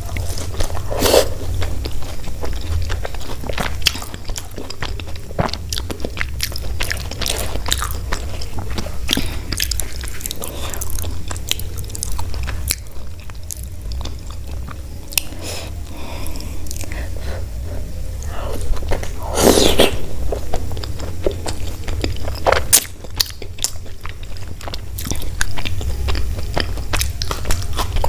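Close-miked eating of Indian flatbread (paratha and kachori) with potato curry: steady chewing with wet mouth clicks, smacks and bites, louder about twenty seconds in, over a steady low hum.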